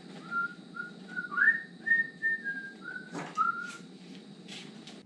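A person whistling a short tune of about nine notes, with a sharp knock about three seconds in and a few faint clicks near the end.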